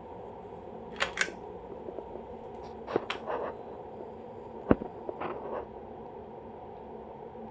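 Hunter Low Profile ceiling fan running with a steady hum. Several sharp clicks and knocks stand out over it, the loudest a single knock a little before the five-second mark.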